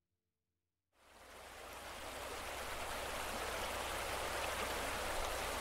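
Running water: a steady rushing hiss with a low rumble, fading in from silence about a second in.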